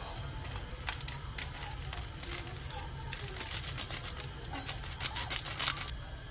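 Plastic ramen sachet crinkling and crackling as its dried flakes are shaken out into a pot of water: a quick, uneven run of rustles that stops shortly before the end.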